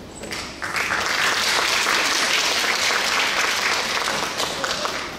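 Audience applauding, swelling to full strength about a second in and easing off near the end.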